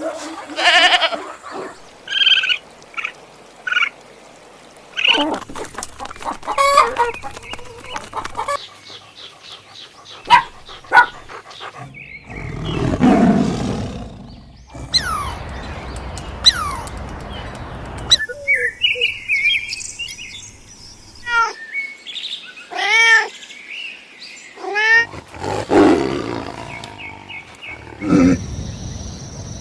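A run of different animal calls, one short clip after another, the sound changing abruptly every few seconds; some are high chirping calls, others lower roars.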